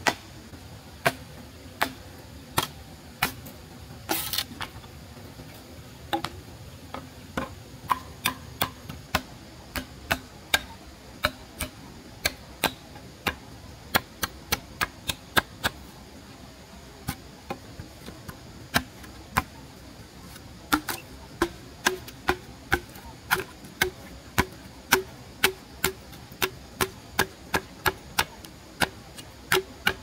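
Repeated sharp chopping strikes of a blade, irregular at about one or two a second, coming quicker and more evenly in the last third.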